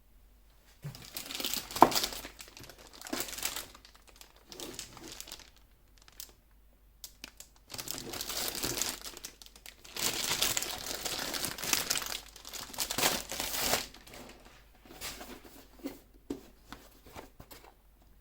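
Keyboard packaging being handled and opened: irregular bursts of crinkling and rustling, with a sharp knock a little under two seconds in.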